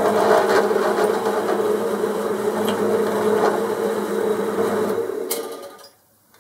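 Drilling machine running with a steady motor hum as a 5 mm twist drill cuts a hole about 4 mm deep into a steel block. The machine is switched off and fades out a little after five seconds in.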